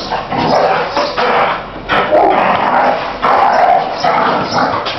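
Young Belgian Malinois barking again and again, a few barks a second, as it is worked up in early protection training.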